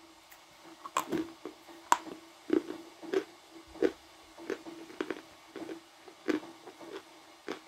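Someone biting into and chewing a lump of hard, crumbly blue Uzbek edible clay: a string of irregular crunches, roughly one every half second to a second, the loudest about one and two seconds in. A steady low hum runs underneath.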